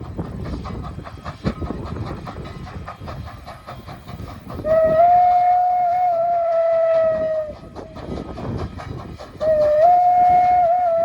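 PRR banshee steam whistle on 1910 2-6-0 mogul steam locomotive No. 89 sounding two long blasts, each about three seconds, with a gap of about two seconds between them. Under the whistle runs the rhythmic running noise and rail clatter of the moving train.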